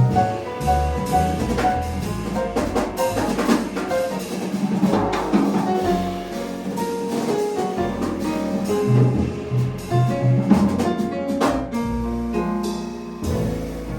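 Jazz piano trio playing: piano, bass and drum kit together, with the drums busy throughout.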